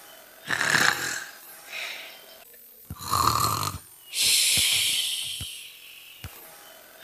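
A voice imitating snoring: a short snorting breath in about half a second in, a louder buzzing snore around three seconds, then a long hissing breath out that slowly fades. A few faint clicks sound between the breaths.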